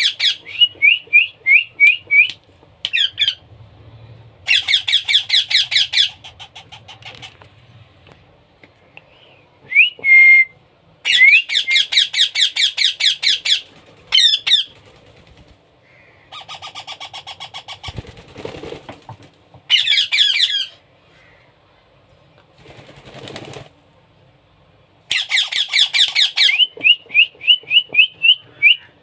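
Baby parrot begging while being hand-fed: repeated bursts of fast, pulsing squawks a second or more long, alternating with runs of short, rising chirps.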